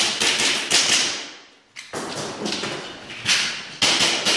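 Custom Tokyo Marui Hi-Capa gas blowback airsoft pistol firing rapid strings of shots, sharp cracks in quick runs of several, with brief pauses between the strings as targets are switched.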